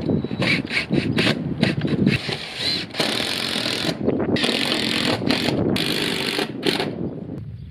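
Cordless DeWalt driver fastening screws into corrugated metal roofing. Several short bursts come in the first two seconds, then two longer runs of a second or two each.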